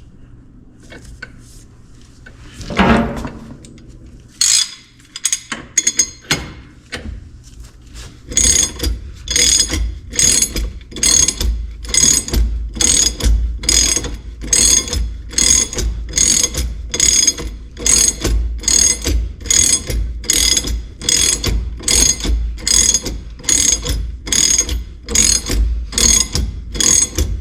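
Hand ratchet clicking in a steady, even rhythm of about one and a half strokes a second as it turns the screw of a bearing press tool, drawing a wheel bearing and hub into the rear carrier. A brief scrape comes about three seconds in, before the clicking starts.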